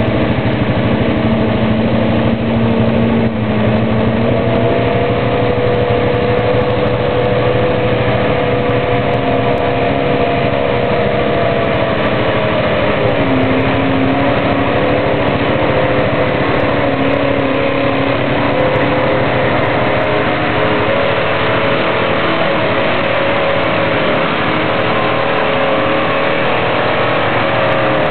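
Mud bog truck engines running loud and steady, with the pitch of an engine drifting slowly up and down as it revs and eases off.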